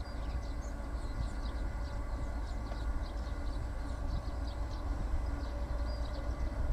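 A steady low mechanical rumble with faint short high chirps over it.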